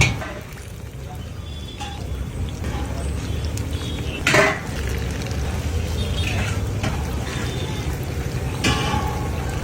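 Bhajiya cooking at a street food stall: liquid, frying-oil sounds and metal pans and utensils over a steady low rumble, with one loud sharp clatter about four seconds in.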